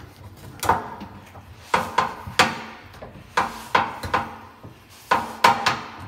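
Adjustable wrench knocking and clicking against a gas cooktop's inlet fitting as the old LPG inlet elbow is worked loose: a run of sharp, irregular knocks.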